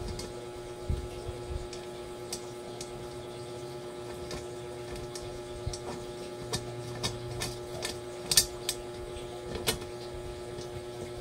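Scattered light clicks and taps as a new non-stick wok and its parts are handled and fitted together, with a sharper click about eight seconds in, over a steady electrical hum.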